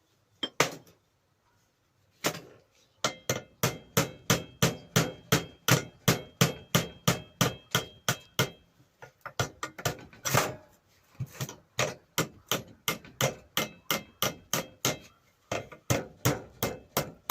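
Small hammer tapping on metal: a few single taps, then a long steady run of quick taps, about three a second, each with a short metallic ring. A stuck part of a grinder is being knocked loose.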